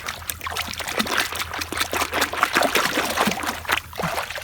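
Water splashing and trickling in a quick, irregular run of small splashes as toy vehicles are washed.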